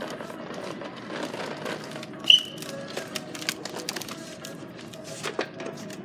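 Shop background with faint music, scattered clicks and knocks from handling, and one short, sharp high-pitched chirp a little over two seconds in, the loudest sound.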